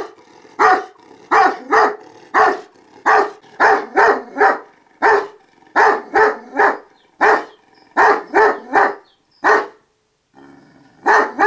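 Large dog barking repeatedly, deep barks coming in quick runs of two to four, with a short break shortly before the last pair.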